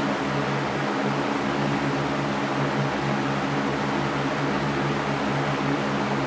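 Electric fan running steadily: an even rush of moving air with a low, steady motor hum underneath.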